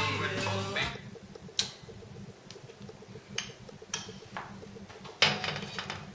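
Background music ends about a second in. After it come a faint, fast, even ticking and five sharp clicks, the loudest near the end.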